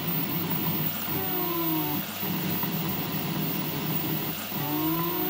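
Rotary delta 3D printer running a print: a steady fan hum with the stepper motors whining in pitches that slide up and down past each other as the arms change speed, about a second in and again near the end.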